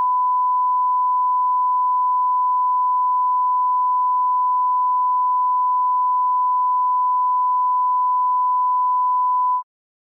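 A single steady pure test tone near 1,000 Hz, the tone a TV station plays at sign-off. It is held at a constant level for about nine and a half seconds and cuts off suddenly near the end.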